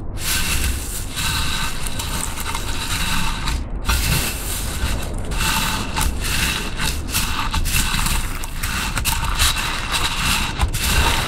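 Clear slime being kneaded and folded by hand through a tray of loose polystyrene foam beads: a dense, continuous crunching crackle of the tiny foam balls being pressed and rubbed together.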